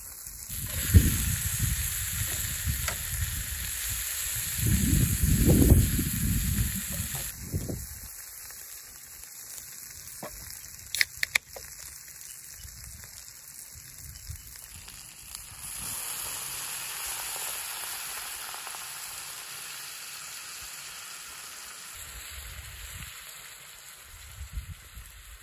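Vegetables sizzling in a frying pan over a rocket stove, a steady hiss. Heavy low thumps and rumbles fill the first seven seconds, and a couple of sharp clicks come about eleven seconds in, as a beer can is opened.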